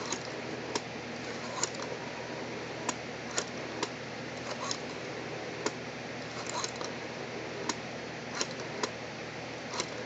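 A rotary telephone being dialed: about a dozen sharp mechanical clicks at uneven intervals, a few coming in quick clusters.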